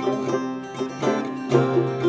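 Clawhammer banjo tune played on a cittern set up as a five-string banjo together with a Gold Tone cello banjo, both tuned gCGCD an octave apart: rhythmic plucked notes over a held low note.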